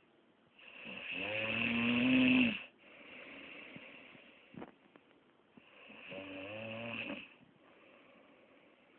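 A sleeping person snoring: two long, rasping snores about two seconds each, the first louder and building to a peak before cutting off sharply. A softer breath lies between them.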